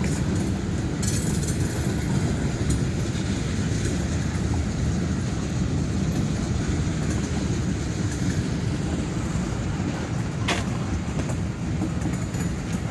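Train cars rolling past with a steady rumble and clatter of wheels on the rails, and one sharp knock about ten and a half seconds in.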